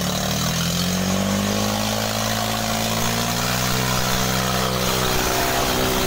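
Mahindra 265 DI tractor's three-cylinder diesel engine running under load, hauling a trolley of wood. Its pitch dips slightly in the first two seconds, then climbs gradually as the engine picks up speed.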